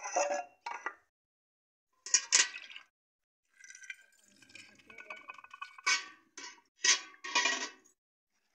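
Metal ladle stirring liquid kadhi in a metal pot: sloshing, with the ladle scraping and clinking against the pot in several short bouts, the sharpest clinks near the end.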